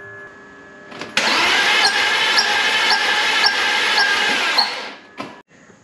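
BMW M54 inline-six engine cranking over on its starter for about three and a half seconds, starting about a second in, with a regular beat roughly twice a second. This is a compression test on an engine with a failed head gasket: cylinder five comes up low, at 50 psi.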